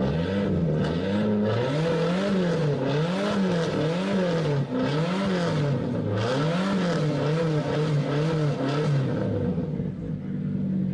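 Turbocharged VAZ-2110 inline-four engine in a Moskvich-2140 coupe being revved in repeated blips, its pitch rising and falling about once a second. Near the end it settles back to a steady idle.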